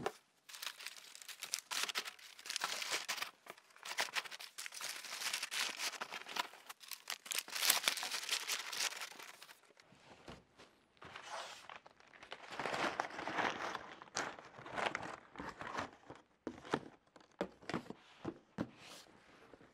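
Crumpled brown paper cushioning (X-pad) crinkling and rustling as it is stuffed around a box inside a cardboard carton, thickest in the first half. Later come broken rustles and a few separate knocks as the carton's flaps are folded shut.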